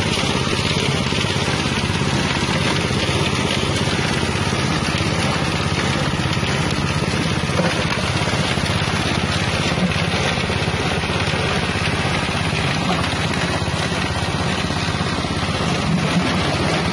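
Spice grinding mill driven by its 6.5 hp engine, running steadily at a constant speed as it grinds galangal, with a few small knocks from the mill.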